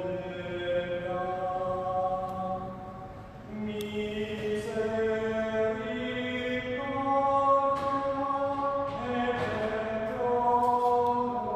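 Slow sacred chant: singing in long held notes, the melody moving in steps, with a short break about three and a half seconds in.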